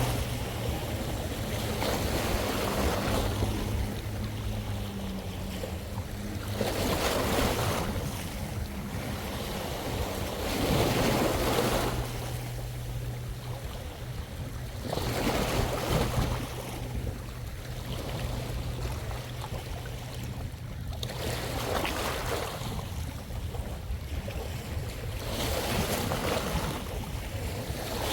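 Sea waves washing onto a shallow shore, swelling and falling back every three to four seconds, over a steady low hum.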